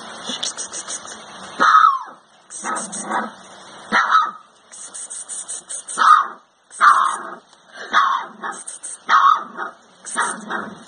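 Rottweiler puppy howling in a string of short yowls, roughly one a second, some falling in pitch.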